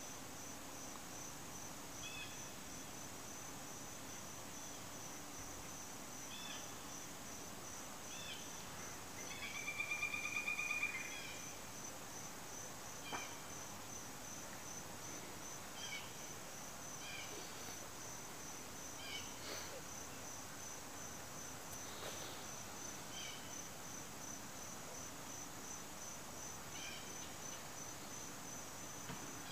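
Crickets chirping in a steady, fast, high-pitched pulse, with a few short faint calls scattered through and one louder trilled call about ten seconds in.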